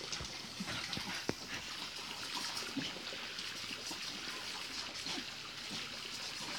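Water trickling from a garden tap while a dog licks and drinks at the spout, with small lapping sounds and splashes over the steady trickle.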